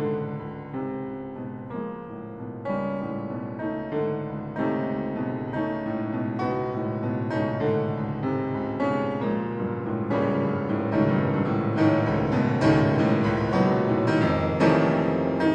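Solo piano playing dense, repeated struck chords that grow gradually louder.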